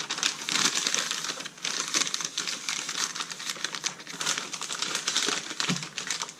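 Newspaper crinkling and crackling as it is folded and wrapped around a flat water stone, in a dense, continuous crackle broken by a few brief pauses.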